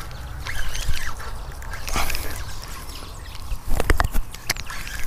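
Birds calling in short chirps over a low rumble of wind on the microphone, with a few sharp knocks from handling the rod and reel about two and four seconds in.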